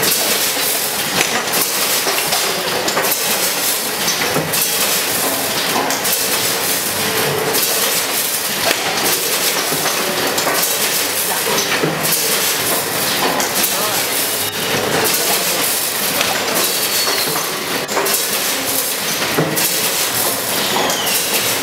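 Vertical form-fill-seal packaging machine with a multihead weigher running: a continuous mechanical clatter full of quick clicks and knocks.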